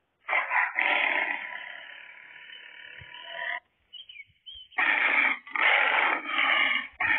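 Tiger roar sound effect: one long roar that fades away over about three seconds, then after a short pause a run of shorter roars in quick succession.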